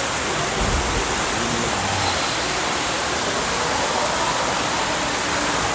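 Steady, loud rushing noise with no distinct events, with a faint low hum around a second or two in.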